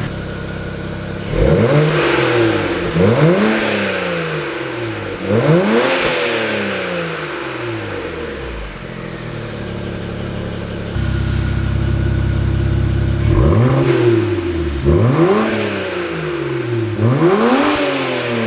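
BMW 335xi's twin-turbo N54 straight-six, uncorked through open electric exhaust cutouts, blipped to quick revs and falling back to idle. Three sharp revs come, then a few seconds of idle, then three more.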